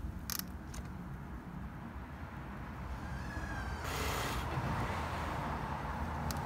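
Wrench on a spark plug being tightened: a few sharp clicks shortly after the start and again near the end, over a low steady rumble, with a brief rush of noise about four seconds in.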